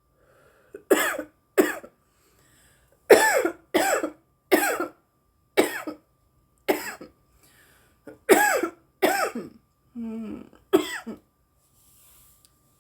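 A woman's coughing fit after drawing on a cannabis joint: about a dozen hard, voiced coughs in clusters of two or three with short pauses between.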